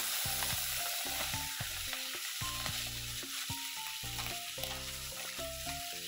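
Cubed potatoes sizzling as they fry in a pan of hot fat, with a steady hiss, and a wooden spoon stirring them near the end. Background music plays underneath.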